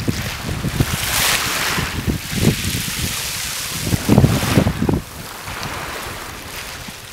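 Small sea waves washing up a shingle beach, the water hissing over the pebbles as it surges in, brightest about a second in. Wind buffets the microphone in low gusts, strongest about four seconds in, then eases.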